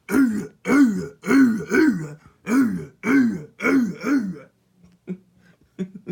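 A man's voice making a run of eight short, throaty nonsense calls, each rising then falling in pitch, about two a second, stopping about four and a half seconds in.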